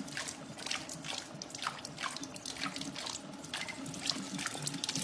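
Water trickling from a tap into a sink, with many small drops plinking irregularly.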